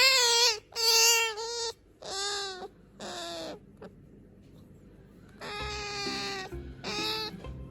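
Asian small-clawed otter calling in a series of short, high-pitched squeaky cries. Two of the cries slide down in pitch, and there is a pause of about two seconds in the middle.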